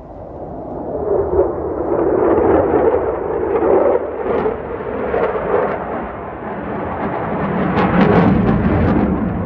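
Military fighter jets passing low overhead: a very loud jet-engine roar that builds over the first couple of seconds and stays loud, swelling and easing as the aircraft pass.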